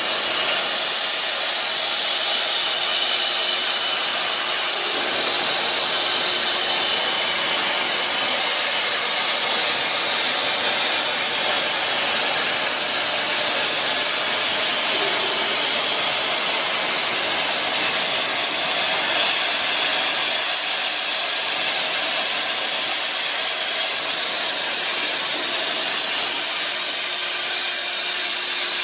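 Plasma torch of a Peddinghaus HSFDB 2500 B CNC plate processor cutting steel plate: a steady, loud, high hiss with a faint thin whistle above it.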